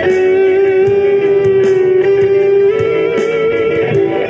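Background music with long held notes at a steady level.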